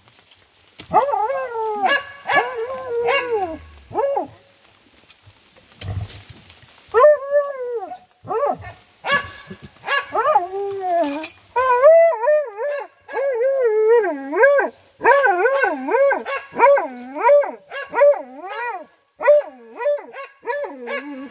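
Hunting hounds baying at a burrow where a lappe (paca) has gone to ground. Long drawn-out bays come first, then quick yelps about twice a second through the second half.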